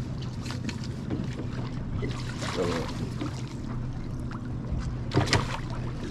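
A boat's motor running with a steady low hum at slow trolling speed. A few short, sharp noises come about five seconds in.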